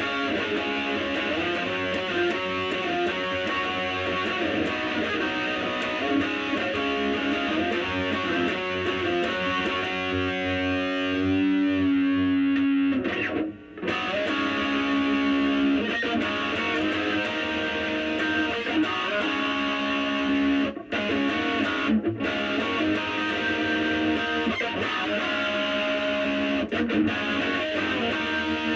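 An EVH Wolfgang electric guitar played through an EVH LBX-S 15-watt lunchbox amp on its high-gain red channel, with heavy distortion: riffs and chords, and a held note with a wavering pitch about ten seconds in. The playing stops briefly twice.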